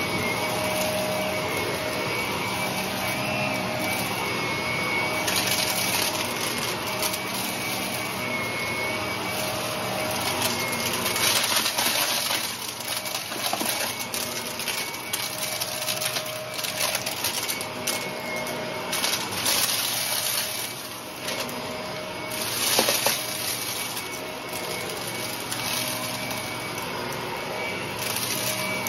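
Shark upright vacuum cleaner running on carpet, its motor giving a steady whine. Over it comes an uneven thick crunch and crackle as the brushroll picks up small debris, in flurries through the middle.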